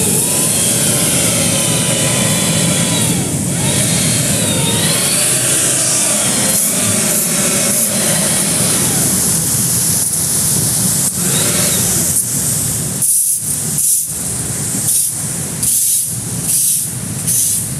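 Steady rushing and splashing of water from a themed resort pool's water features, turning uneven in the last few seconds with surges about once a second.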